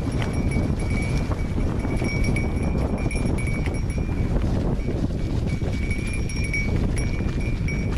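Surly Karate Monkey mountain bike riding a dirt trail: a steady low rumble of wind and tyres with rattling, and a high ringing tone that comes and goes again and again.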